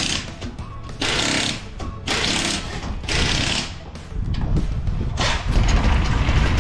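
Pneumatic impact wrench on a wheel's lug nuts, rattling in short bursts about once a second. About four seconds in, a low steady rumble takes over.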